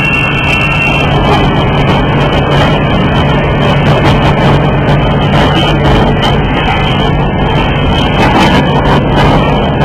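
Porcelain-cup finishing machine running with a loud, steady mechanical drone over a constant low hum.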